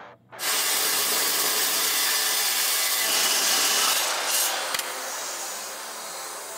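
Metal-cutting chop saw cutting through 1-3/4-inch DOM steel tubing: a loud, even hissing noise that starts suddenly just under half a second in and drops off about five seconds in.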